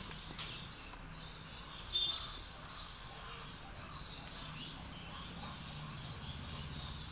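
Outdoor garden ambience: birds chirping faintly over a steady low hum, with a few light clicks of pruning shears snipping brinjal stems and a brief sharp sound about two seconds in.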